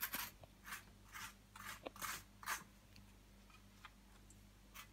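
Knife spreading butter on toast: faint short scrapes, about two a second, which stop about halfway through.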